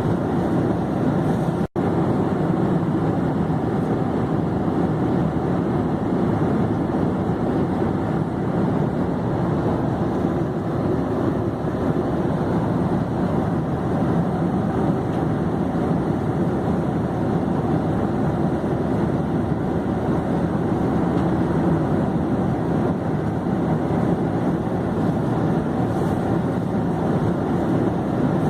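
Airplane in flight: a steady, even drone of engine and air noise that does not change, broken once by a split-second dropout about two seconds in.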